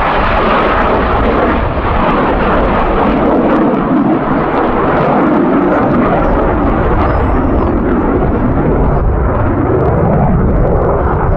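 Belgian Air Force F-16's Pratt & Whitney F100 turbofan at high power during display manoeuvres: a loud, steady jet noise with a crackling edge.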